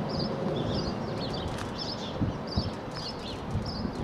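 A distant freight train rumbling away with uneven wheel knocks, while a small bird chirps over it with quick high notes repeated about twice a second.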